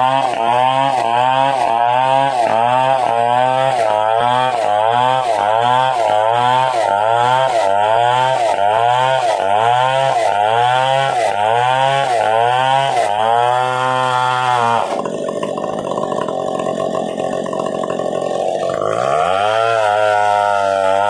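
Stihl 070 two-stroke chainsaw running hard in coconut palm wood, its engine note dipping and recovering in a steady rhythm about one and a half times a second. About two-thirds of the way through it drops to a lower, rougher steady note for a few seconds, then climbs back up near the end.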